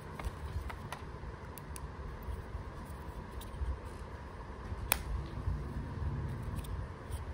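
OnePlus Nord Buds plastic charging case being handled, with low rubbing and faint clicks, and one sharp click about five seconds in as the magnetic lid snaps shut.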